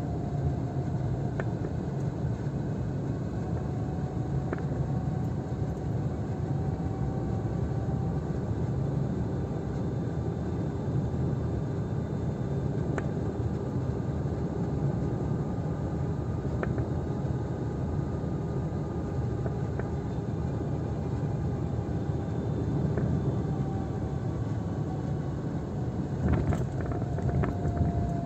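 A car driving on a wet road, heard from inside the cabin: steady engine and tyre noise with a faint whine that slowly rises and falls in pitch. A few light clicks come through, with a cluster of them near the end.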